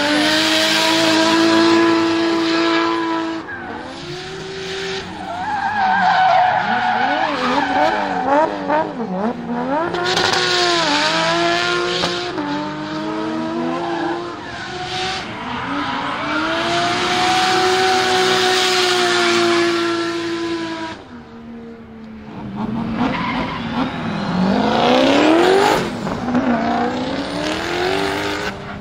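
Drift cars sliding at full throttle, engines held high in the revs with tyres squealing and skidding. First a Toyota Chaser, its engine note bouncing up and down rapidly for several seconds in the middle. After a short lull about three-quarters of the way through, a Ford Mustang drift car revs up steeply and slides.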